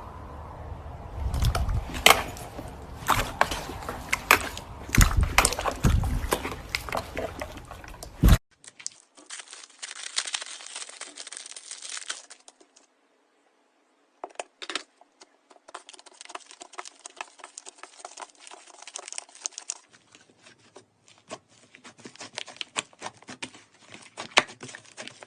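Slime being pressed and stretched by hand, giving dense crackling and popping with many sharp clicks. It comes in several separate stretches that cut off abruptly, about eight seconds in and again near thirteen seconds.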